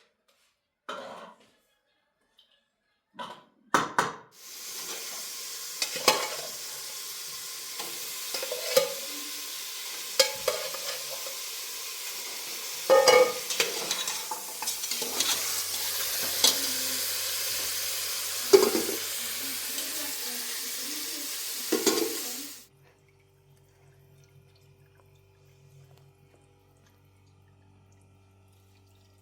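Kitchen work at a pot: a steady hiss with repeated clinks and knocks of a utensil stirring, cutting off suddenly about 22 seconds in, leaving only a faint low hum.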